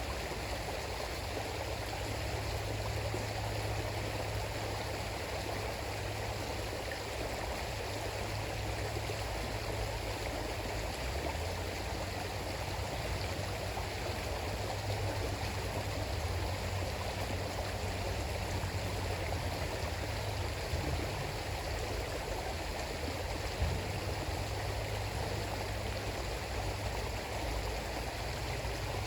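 River flowing through jungle: a steady, unbroken rush of running water.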